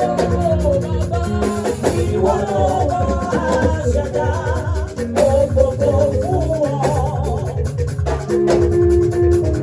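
Live praise music: singing over a band with bass, drums and shaker keeping a steady dance rhythm.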